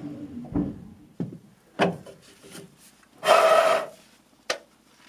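PVC drain pipe and fittings being handled and pushed together while dry-fitting: a few light plastic knocks and clacks, and one louder, brief scraping rub about three seconds in.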